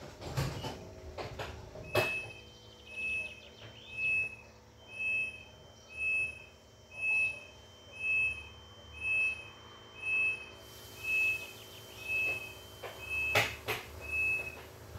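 Electronic warning beeper sounding a short high beep about once a second, over a steady low hum, with a sharp thump at the first beep and another near the end.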